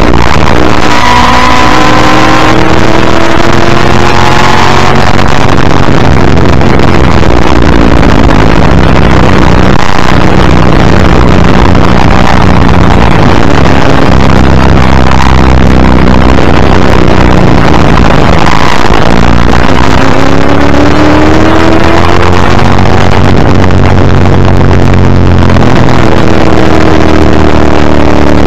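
A 1984 Ford Falcon XD Group C racing car's V8 engine at race pace, heard very loud from the front bumper, its revs climbing several times as it accelerates through the corners. Throughout, it sits under a heavy rush of wind and road noise.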